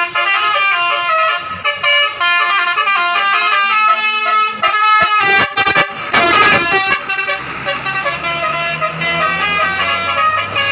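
Indonesian bus 'telolet' musical horns playing quick stepping multi-note melodies, one bus's horn answering another's. A burst of rushing noise comes about six seconds in, and a low engine hum runs under the horns after that.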